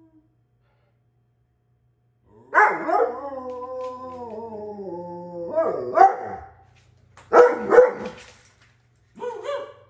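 Alaskan Malamute howling. About two and a half seconds in comes one long howl that slides down in pitch, followed by several short barking calls.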